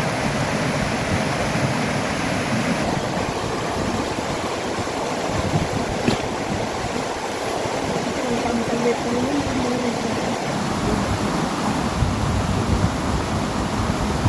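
Strong wind rushing and gusting, buffeting the microphone with a low rumble, possibly mixed with river water.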